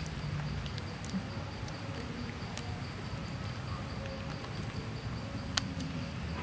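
An insect chirping steadily in a fast, pulsing high tone, over a low background rumble. A few sharp clicks cut in, the loudest about five and a half seconds in.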